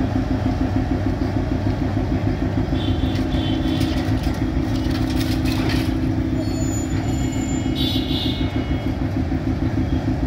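A diesel locomotive's engine running steadily close by: a steady low hum over a pulsing rumble.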